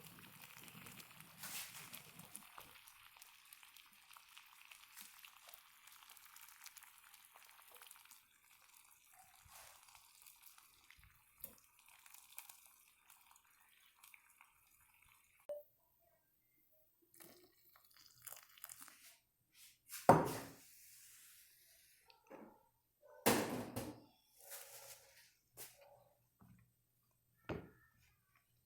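Slime being mixed with dishwashing liquid: faint wet crackling, then scattered sharp clicks and knocks of containers and utensils, the loudest about 20 and 23 seconds in.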